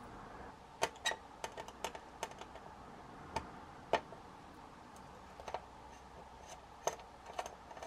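Faint, irregular small clicks and ticks of a screwdriver being turned in a screw on a laptop's bottom cover.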